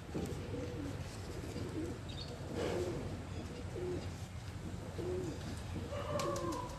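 A pigeon cooing: a series of short, low coos repeating roughly once a second over a steady low background hum.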